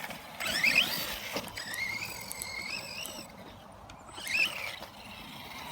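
JLB Cheetah RC buggy's brushless electric motor whining under throttle. A rising whine comes about half a second in, then a steadier whine for nearly two seconds, then another short rising whine near the end.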